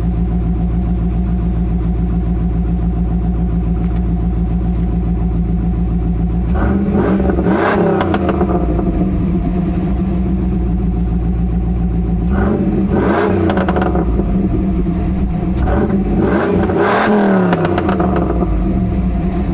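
A 1995 Pontiac Trans Am's LT1 350 V8 with a Flowmaster exhaust, idling steadily, then blipped hard in three quick bursts of revs, about seven, twelve and sixteen seconds in, each falling back to idle.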